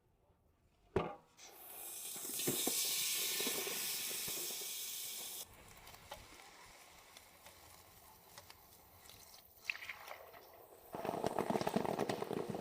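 A sharp click, then a loud, steady hiss that lasts about four seconds and cuts off suddenly. A fainter hiss follows, and a louder crackling noise starts near the end.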